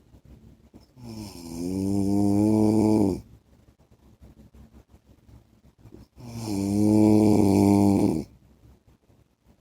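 A man snoring: two long snores about five seconds apart, each lasting about two seconds, swelling louder and then stopping abruptly.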